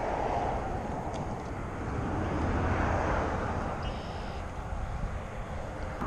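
Road traffic on a nearby highway: a steady rumble that swells as vehicles pass, loudest a little before the middle.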